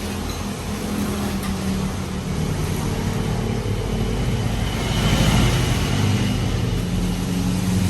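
A motor vehicle's engine running amid road noise, growing louder about five seconds in.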